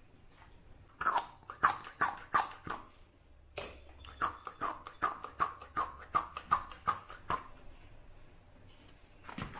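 Hand-operated vacuum brake bleeder pump squeezed over and over, about three strokes a second, with a short pause about two seconds in. It is sucking brake fluid and air out through the front caliper's bleed nipple while the brakes are bled.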